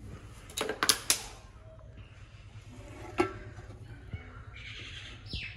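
Kitchen knife and utensils clinking: three sharp clicks close together about a second in and one more about three seconds in. Birds chirp faintly near the end.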